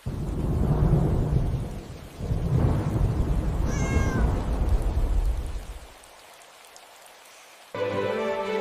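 Two long low rolls of thunder, with a short cat meow about four seconds in. The thunder dies away into a quieter patter of rain before music comes back near the end.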